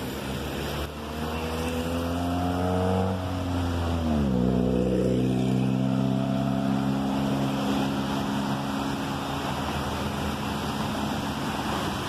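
A motor vehicle's engine passes close by, its pitch dropping as it goes past about four seconds in, then an engine hum holds steady. Under it runs a steady rush of river water over rocks.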